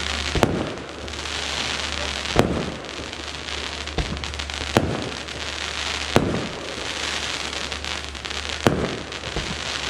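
Pyroweb Prisma fireworks battery firing crackling lances: a continuous dense crackle, with a sharp shot every second or two, five in all.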